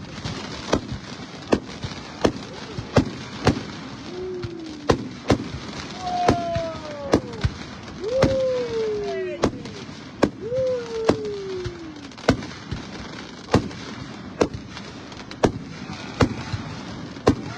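Aerial fireworks display: a steady run of sharp shell bursts, about one to two bangs a second. A few long falling whistle-like tones sound in the middle.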